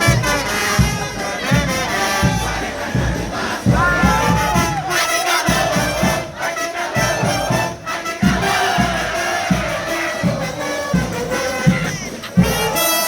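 A frevo band's brass and drums playing, with a large crowd singing and shouting along over a steady drum beat.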